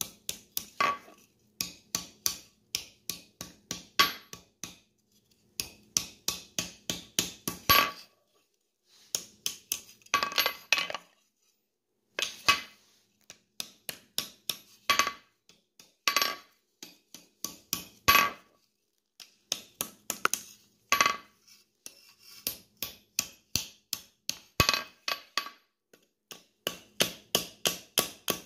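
Hand hammer striking red-hot steel on an anvil while rolling the hinge barrel of a forged skillet handle. It comes in quick runs of blows, about three or four a second, broken by brief pauses, and each blow rings.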